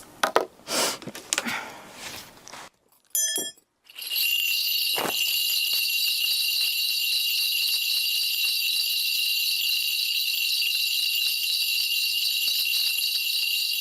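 A Korean shaman's ritual bell rattle (bangul, a cluster of small brass bells on a handle) shaken continuously from about four seconds in, a steady bright jingling, as she calls the spirits for a divination. Before that there are a few handling clicks and rustles and a short ringing tone, and a single low thump comes about five seconds in.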